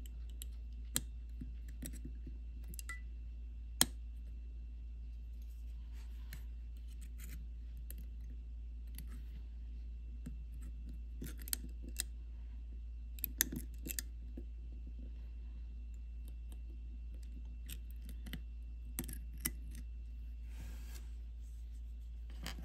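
Steel watchmaker's tweezers clicking and scraping against an SR920SW silver-oxide button cell and its metal retaining clip as the battery is levered out of a quartz watch movement. The metallic ticks come at irregular intervals, the loudest about four seconds in and a cluster around the middle, over a steady low hum.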